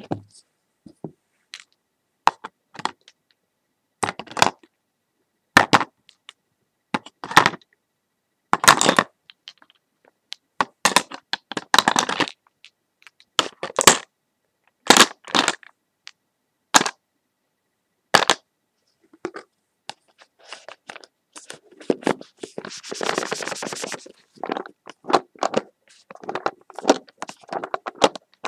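Sharp cracks and snaps at irregular intervals, with a longer stretch of crackling rustle about three quarters of the way through.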